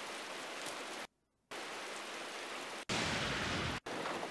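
Rain from an anime episode's soundtrack playing as a steady hiss, cut off by short silences twice as playback is skipped to other points, with a louder stretch of rain in the middle.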